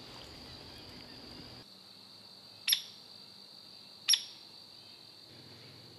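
A bird gives two sharp, short call notes about a second and a half apart, over a steady high drone of insects.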